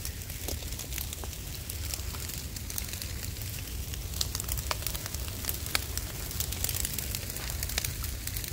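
Brush fire crackling as felled, dried palm fronds and swamp brush burn, with irregular sharp pops over a low rumble.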